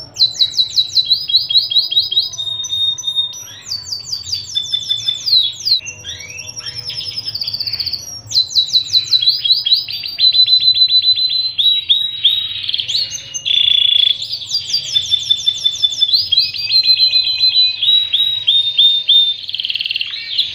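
Pied 'panda' domestic canary singing a long, unbroken song: fast runs of rapidly repeated high notes, one kind of note after another, switching to a new trill every second or two.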